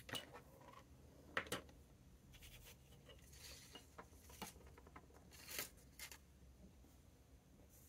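Faint handling sounds: a few light taps and soft rustles as a paintbrush, a dip pen holder and paper swatch cards are moved and set down on a desk.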